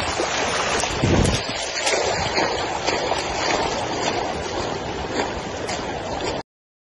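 Steady rushing of floodwater with wind gusting and buffeting the phone microphone, the gusts strongest about a second in; the sound cuts off suddenly near the end.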